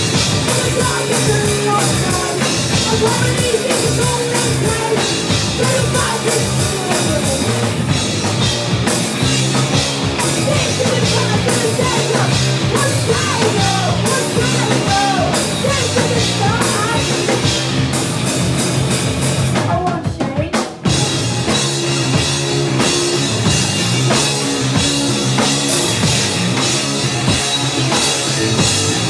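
Rock band playing live: distorted electric guitars, bass and a drum kit, with a woman's vocals. About two-thirds of the way through, the music stops briefly, then the full band comes back in.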